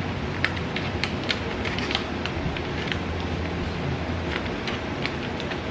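MRE flameless ration heater fizzing as water activates it, a steady hiss with scattered crackles and ticks as the reaction starts to heat up.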